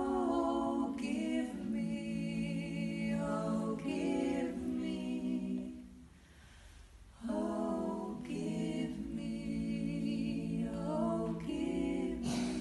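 Four-part female a cappella vocal group singing sustained chords in two phrases, with a short pause for breath about six seconds in.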